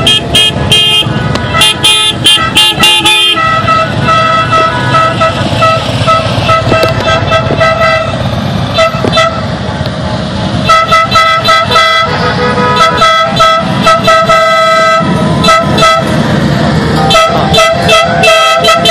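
Horns honking over and over, some in quick short toots and some held for a few seconds, over the steady rumble of motorcycle engines riding past.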